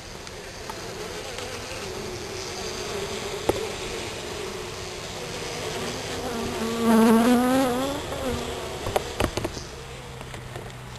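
Honeybees buzzing at an open top-bar hive, a steady hum, with one bee passing close by about seven seconds in, its buzz louder and wavering in pitch. A few sharp clicks sound over it.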